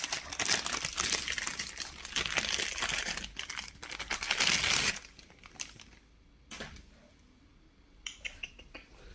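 Clear plastic accessory bag crinkling as it is handled, for about five seconds, then a few light clicks and knocks.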